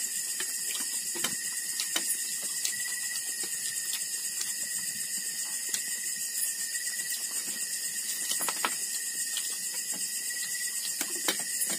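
Night chorus of crickets (kuliglig), a steady high-pitched trilling. Faint clicks and knocks from eating at the table are scattered through it.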